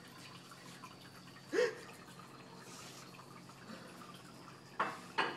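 Quiet indoor room tone with a faint steady hum. About a second and a half in there is one short voice sound, and near the end there are two brief sharp noises.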